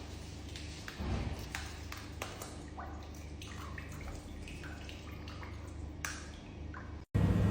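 A scattering of small, sharp clicks and drips over a low steady hum, cut off abruptly near the end by a sudden louder, rumbling sound.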